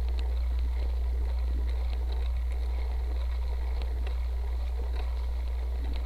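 Steady low rumble of a cyclocross bike rolling over a grassy dirt track, picked up through a seatpost-mounted camera, with scattered light ticks and rattles from the bike.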